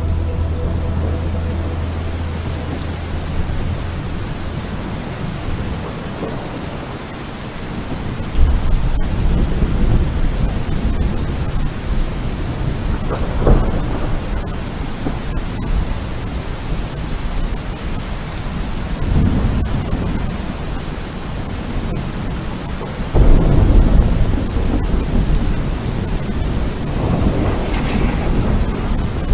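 Steady rain with low rolls of thunder every few seconds, the loudest breaking about eight seconds in and again about 23 seconds in.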